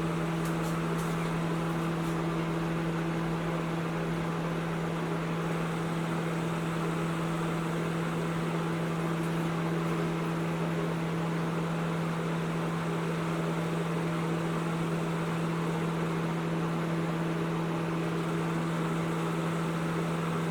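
Panasonic NN-ST45KW inverter microwave oven running through a one-minute heating cycle: a steady, unchanging hum with a low drone.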